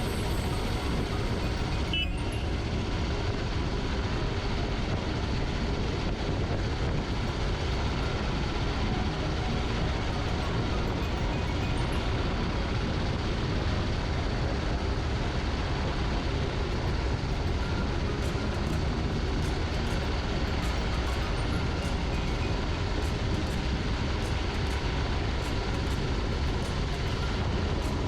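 Mumbai Metro Line 2A train running between stations, heard from inside the car: a steady running rumble with faint steady tones over it and a single click about two seconds in.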